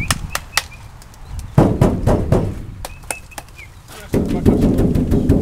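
Knocking and slapping on the side of a racing-pigeon transport truck's crates, in two louder spells about a second and a half and four seconds in, with sharp claps between them.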